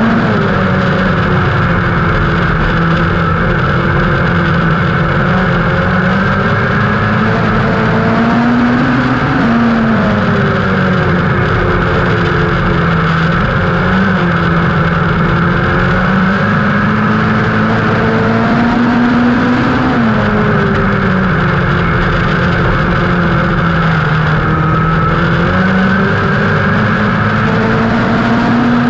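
Dirt-track midget race car's engine heard from on board at racing speed, the revs climbing for a few seconds along each straight and then falling off sharply into the turn, about every ten seconds.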